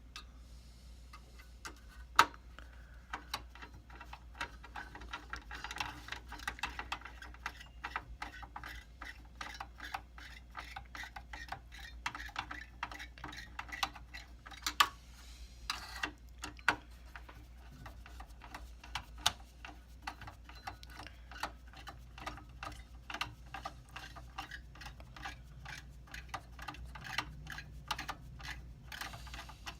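Rapid, irregular clicking and ticking with a few louder knocks about two seconds in and halfway through, as a CPU heatsink is refitted in a server. A steady low hum runs underneath.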